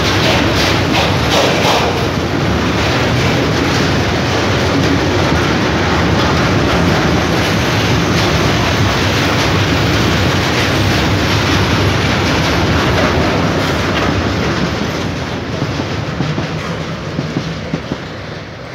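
Freight train of tank wagons rolling past, steel wheels running on the rails with a steady rumble and clatter. The noise eases off over the last few seconds as the end of the train goes by.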